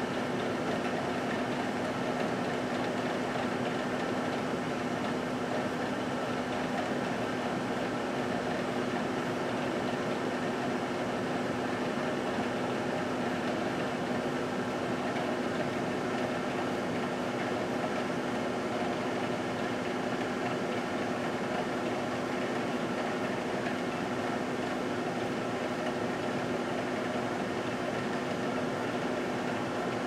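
GE Dual Wave microwave oven running: a steady, even hum with fan noise and no change in level.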